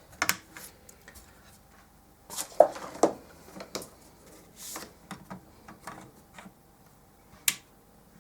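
Irregular plastic clicks, knocks and rustling from handling a Samsung SyncMaster monitor's boards and plugging cable connectors into them. The loudest click comes about two and a half seconds in, and a single sharp click near the end.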